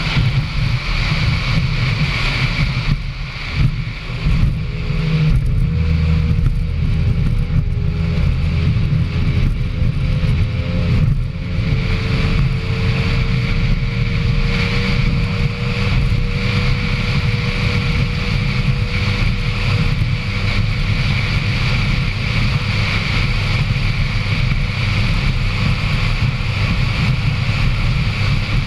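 Racing powerboat running flat out at sea, its engine noise mixed with heavy wind buffeting on a deck-mounted microphone. A thin steady whine joins about five seconds in and fades out past the middle.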